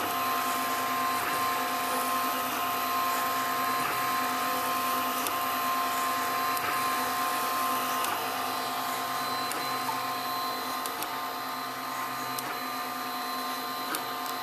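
FDM 3D printer running mid-print: its stepper motors whine in several steady tones over the whirr of the print-head cooling fan as the head sweeps back and forth laying infill. There is a light tick at each reversal, about every 1.3 seconds. The tones shift and the sound drops slightly about eight seconds in.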